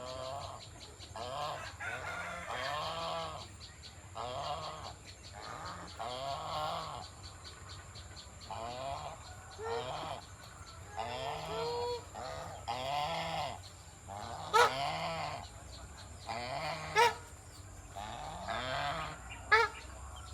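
Domestic geese honking over and over, roughly one call a second, with three sharper, louder honks in the second half.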